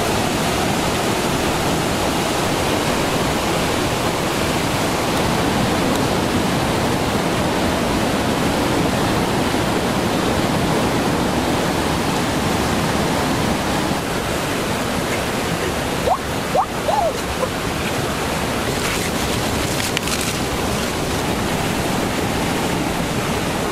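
Swollen stream rushing and cascading over rocks: a steady, unbroken noise of water.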